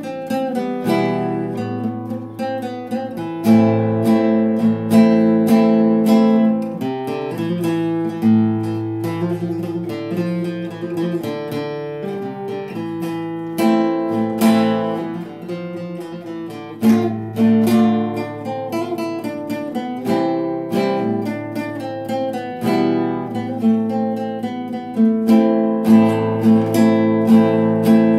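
Nylon-string classical guitar played solo: an instrumental passage of plucked melody notes over bass notes, with some strummed chords.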